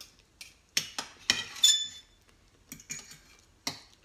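Knife and fork clinking and scraping against a ceramic plate while cutting a cabbage roll: a run of sharp taps, one ringing briefly about one and a half seconds in, then a few more near the end.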